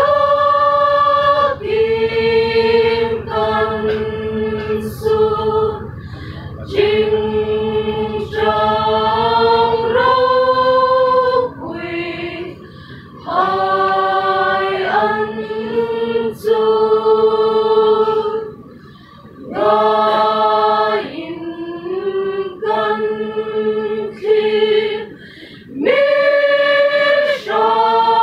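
Mixed choir of men and women singing a cappella in sustained chords, phrase by phrase with short breaks between phrases.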